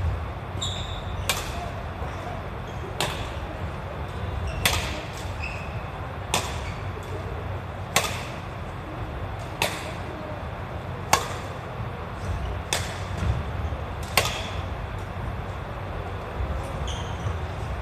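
Badminton rally: rackets striking a shuttlecock about every second and a half, nine hits back and forth, the nearer player's hits loudest, echoing in the hall. A few short high squeaks, typical of court shoes on the wooden floor, fall between the hits.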